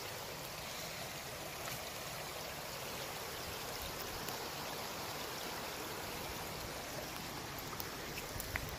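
Small forest creek running over logs and rocks, a steady wash of flowing water, with a few light clicks near the end.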